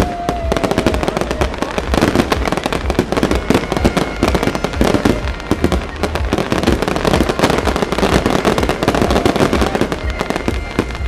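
Fireworks display in a dense barrage: many shells bursting and crackling in quick succession, without a break.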